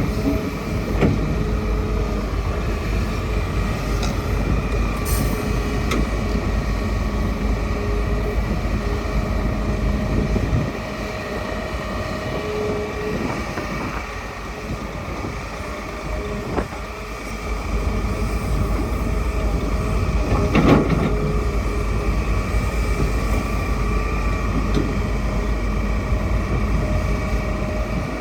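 Hitachi hydraulic excavator's diesel engine and hydraulics running under working load. The engine note drops about eleven seconds in and rises again about six seconds later as the machine works. A few sharp metallic knocks come through, the loudest about two-thirds of the way through.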